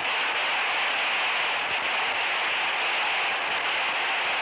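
Prolonged applause from the deputies filling a parliamentary chamber: a dense, steady clapping on an old film soundtrack.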